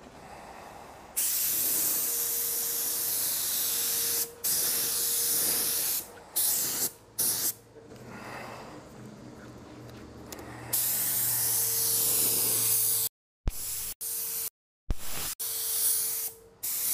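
LVLP spray gun (R500) atomising clear coat with compressed air: a series of hissing spray passes, the trigger pulled for a few seconds at a time and then for shorter bursts, with a faint steady whistle beneath. The gun's fan pattern is turned down for spraying the bumper's edges.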